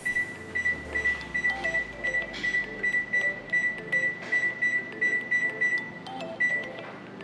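Electric oven's control panel beeping as it is set to preheat to 425 °F: a quick run of short, high beeps, about four a second, stopping about six seconds in, then one longer beep.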